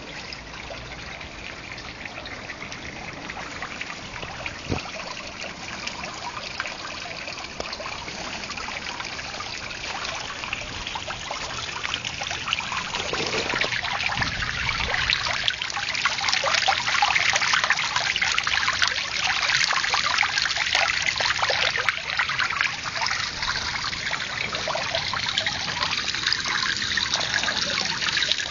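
Garden water feature trickling and splashing steadily, growing louder about halfway through as the sound comes closer.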